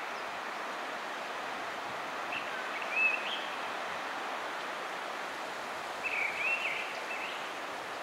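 Mistle thrush singing: two short warbled phrases, somewhat like a blackbird's song, one about two and a half seconds in and one about six seconds in, over a steady background hiss.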